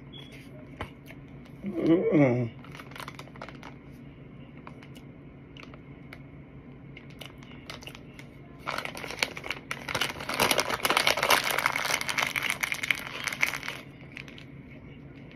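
A plastic bag of starch powder crinkling and rustling as it is handled, for about five seconds from past halfway. Earlier, about two seconds in, a person's short 'mmm' falling in pitch.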